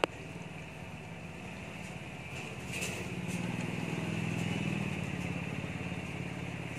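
A motor engine passing by: a steady low drone that grows louder a few seconds in and then eases off.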